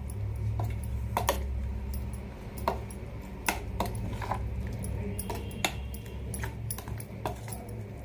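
Steel ladle clinking and scraping against a stainless-steel bowl while stirring thick oats dosa batter, in irregular knocks, over a steady low hum.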